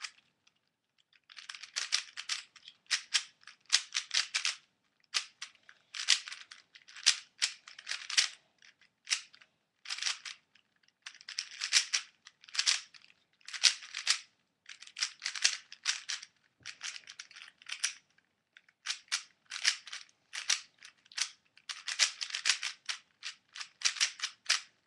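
Stickerless Dayan ZhanChi 3x3 speedcube being solved by hand: rapid runs of plastic clicking as the layers are turned. The runs are broken by short pauses, with a longer pause about two thirds of the way through.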